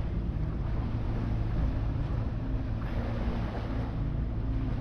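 Sailboat's engine running steadily under way: a low, even drone, with water rushing past the hull and some wind on the microphone.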